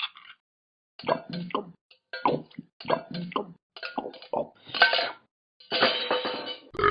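Close-up eating noises: a run of short clicking and clinking sounds, about two a second, from chewing and utensils on a dish. A burp begins right at the end.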